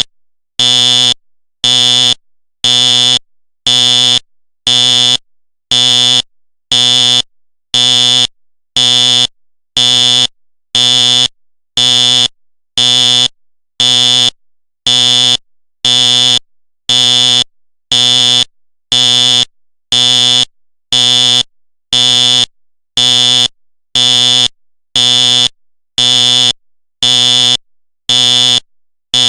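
Simplex fire alarm horn sounding on code pulse: evenly spaced, buzzy blasts about one a second, each about half a second long.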